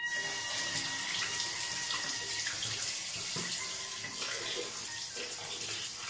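Bathroom tap running steadily into a sink.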